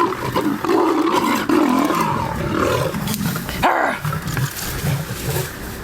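Loud animal calls, one after another, with a sharper, sudden cry a little before four seconds in.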